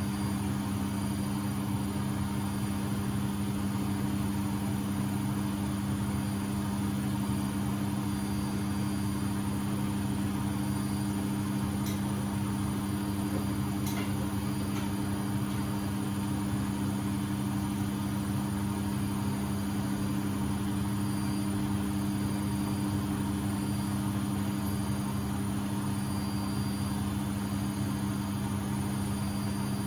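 Beko WMB71642W washing machine in its final spin at 1000 rpm: a steady motor hum with a low rumble from the spinning drum, holding speed evenly throughout.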